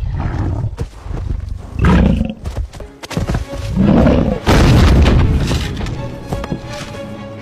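Background music with loud animal calls over it, the longest and loudest running from about four to five and a half seconds in.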